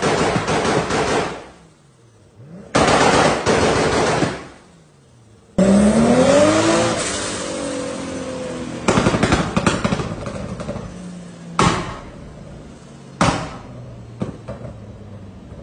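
Tuned Toyota Supra MK4's 2JZ straight-six revved hard in bursts, its exhaust crackling and popping in a rapid machine-gun-like rattle as unburnt fuel ignites in the exhaust and shoots flame. The revs climb in a rising note about five and a half seconds in and then fall away, followed by a few sharp single bangs.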